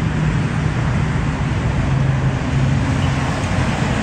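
Steady road traffic: passing cars' engine hum and tyre noise on a wet road.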